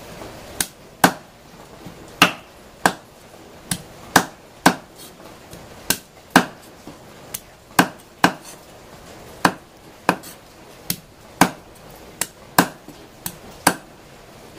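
Meat cleaver chopping a bone-in field rat carcass on a thick round wooden chopping block: about twenty sharp chops, unevenly spaced at roughly one to two a second.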